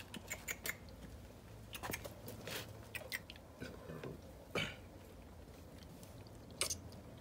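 Close-up eating sounds: steamed eel being chewed and sucked off the bone, with scattered sharp clicks and taps of chopsticks on bowls and a steel platter. A few louder smacks stand out, about four and a half seconds in and again near the end.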